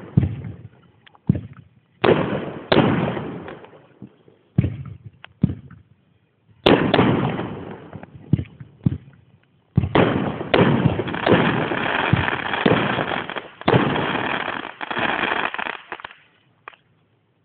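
Firework shells bursting in loud, sharp bangs, each trailing off in a rolling echo. The bangs are spaced out at first, then come thick and fast from about ten seconds in, and fade out a little before the end.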